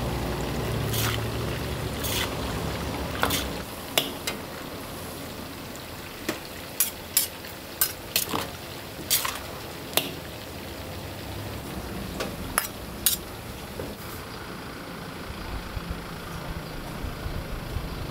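Bean sprouts and chives being stir-fried in a large steel wok: a steady frying sizzle under repeated sharp clanks and scrapes of a metal ladle against the wok. The clanks thin out near the end.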